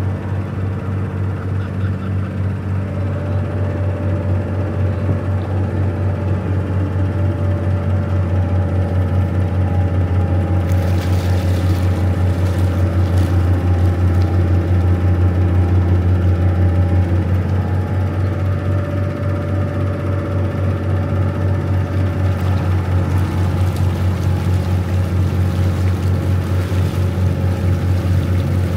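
River cruise boat's engine running steadily under way, a deep hum with a faint steady whine above it, getting a little louder toward the middle. A hiss of water wash or wind joins about a third of the way in.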